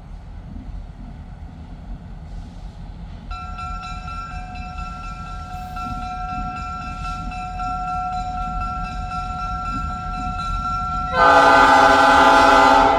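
Train horn: a steady horn chord from about three seconds in, then a much louder horn blast near the end lasting about two seconds.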